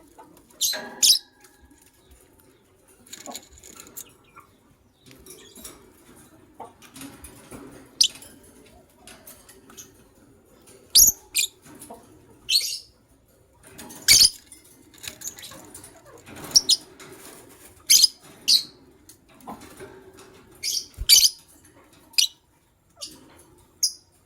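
White lovebirds giving short, shrill chirps at irregular intervals, several in quick pairs, about a dozen in all.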